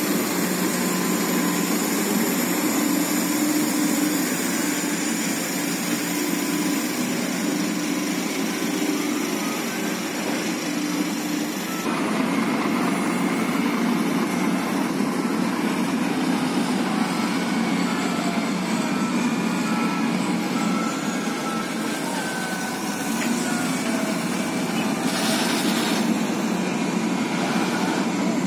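Heavy diesel engines of Mitsubishi Fuso dump trucks running steadily. The sound changes abruptly about twelve seconds in, and a brief hiss comes near the end.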